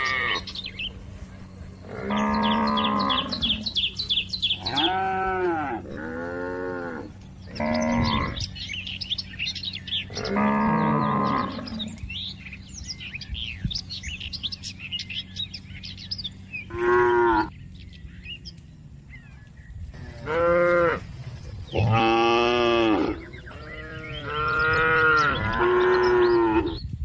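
Cattle mooing repeatedly, about nine drawn-out calls rising and falling in pitch, with birds chirping in the background.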